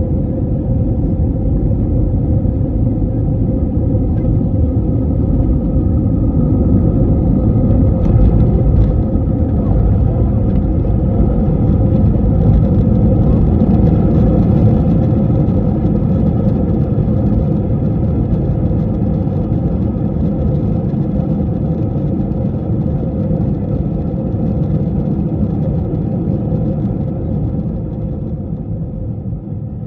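Passenger jet cabin noise: a loud, steady rumble of engines and airflow with a constant hum through it, swelling about a third of the way in and easing off near the end.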